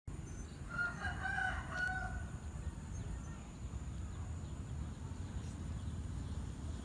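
A rooster crows once, about a second in, over a steady low background rumble.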